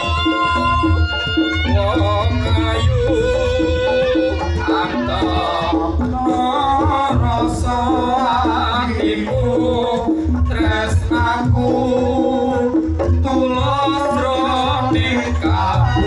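Reog Ponorogo gamelan music: kendang drums and gong-chime instruments keep a steady beat under a wavering melody line.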